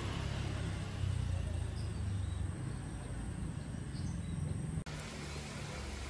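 Outdoor background ambience: a steady low rumble with a few faint, short high chirps. Near the end it cuts off abruptly and a flatter, hissier background takes over.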